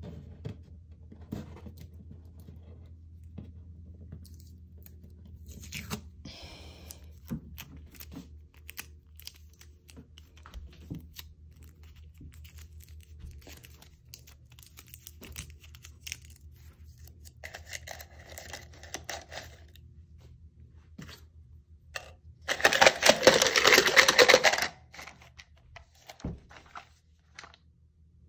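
Handling and rummaging noises: scattered small knocks and rustles. A shorter, weaker crackle comes about 17 seconds in, and a loud crackling, rustling burst lasting about two seconds comes about 22 seconds in.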